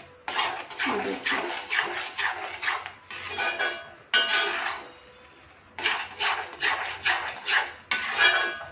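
Steel spoon scraping and knocking against a kadhai as grated carrots and mawa are stirred. It is a quick, uneven run of scrapes and clinks, several a second, that pauses briefly about halfway through.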